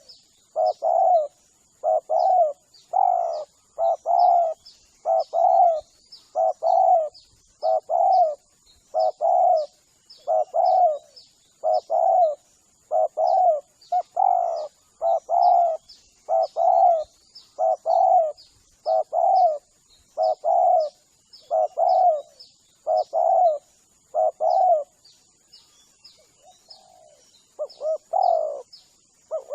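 Spotted dove (tekukur) cooing: short coo notes in quick pairs, repeating about once a second with a brief pause near the end. A lure call played to draw spotted doves in. A faint steady high-pitched tone and small high chirps run underneath.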